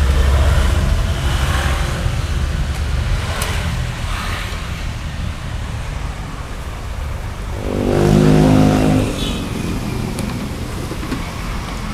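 Road traffic: a steady rumble of passing vehicles, with one louder engine going by about eight seconds in.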